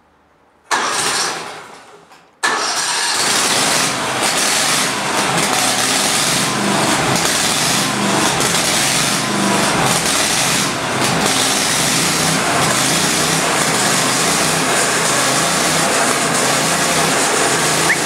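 The engine of a homemade band sawmill being started: it fires suddenly, fades away over a second or so, then catches about two and a half seconds in and runs steadily.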